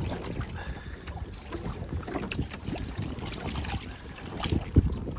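Water sloshing and lapping around a landing net holding a big pike at the side of a boat, with wind rumbling on the microphone and small knocks, one louder knock near the end.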